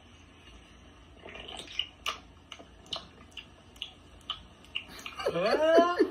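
A man gulping a drink from a can: a string of soft wet swallowing clicks, about two a second. Near the end comes a loud vocal cry that rises in pitch.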